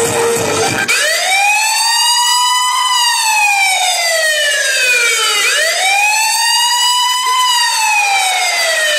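Siren wail played as a sound effect in the dance music track, rising and falling slowly twice after a second of music.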